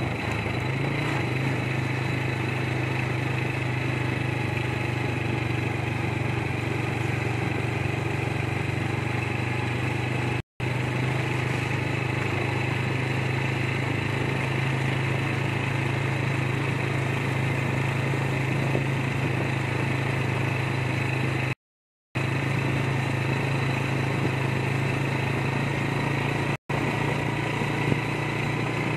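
Small engine of the motorcycle-type vehicle carrying the camera, running at a steady, even speed. The hum cuts out abruptly three times, the middle gap the longest.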